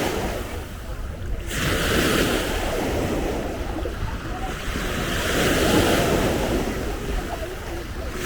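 Sea waves breaking and washing up on a sandy beach, the hiss swelling and fading in slow surges, with wind rumbling on the microphone.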